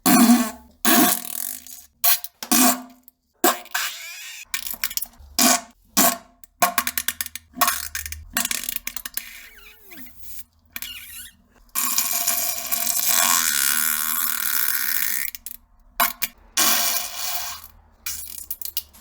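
A run of farts: a string of short, buzzy blasts, then one long fart lasting about three and a half seconds starting about twelve seconds in, and a few more short blasts near the end.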